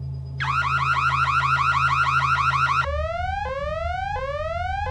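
Sci-fi alert alarm aboard a space train: a rapid warbling tone for about two and a half seconds, then a tone that sweeps upward again and again, about every 0.7 s, over a steady low hum. It is the alert for a newly detected dimensional rift.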